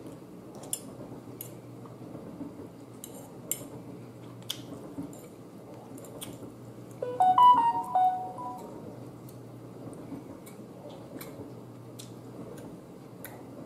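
Eating sounds: a metal fork clicking now and then against a plate, with some chewing. About seven seconds in comes a short melodic run of a few stepped notes lasting a second or so, the loudest sound here.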